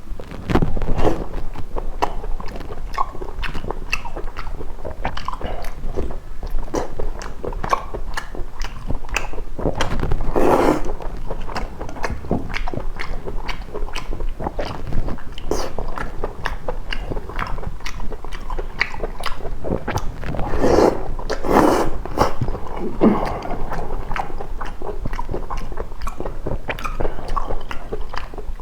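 Close-up eating sounds of a man biting and chewing spicy seafood: many short, sharp crunches and smacks in an irregular rhythm, with denser bursts of crunching about ten seconds in and again about twenty-one seconds in.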